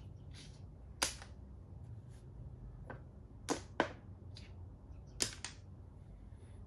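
Plastic makruk (Thai chess) pieces clacking against the board as they are picked up and set down: a handful of sharp clicks, the loudest about a second in, two close together around three and a half seconds, and another a little after five seconds.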